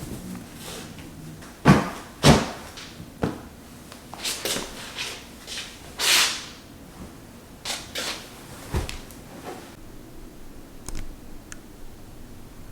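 A series of irregular knocks and clunks from handling household objects, with short scraping rustles in between. The two loudest come close together about two seconds in.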